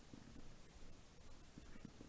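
Near silence, with only a faint low background rumble.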